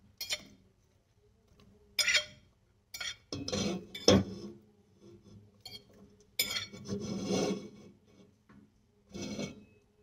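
A metal fork scraping and clinking on a ceramic plate as jackfruit pieces are pushed off into a stainless steel pot, in about five short, irregular bursts.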